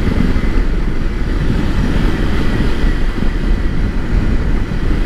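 Kawasaki Versys-X 300 motorcycle ridden over a corrugated dirt road, heard from the rider's camera: a steady, choppy rumble of wind, engine and tyres on gravel.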